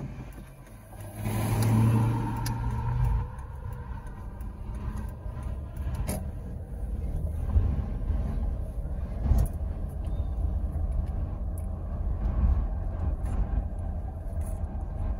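Car driving, heard from inside the cabin: a steady low engine and road rumble, with a louder engine surge about one to three seconds in.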